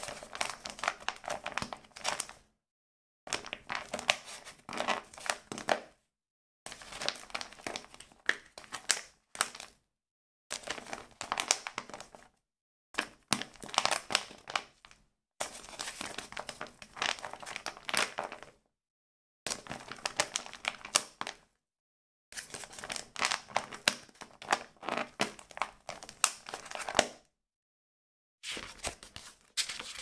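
A small paper book being handled, its pages rustling and riffling, in a series of separate takes of two to five seconds each with silence between them.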